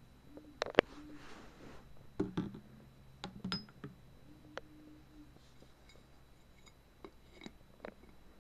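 Scattered clicks and light taps of spice bottles, their caps and a small glass jar being handled while ground ginger goes into the jar. The sharpest click comes a little under a second in, with a quick cluster of taps around two and three and a half seconds.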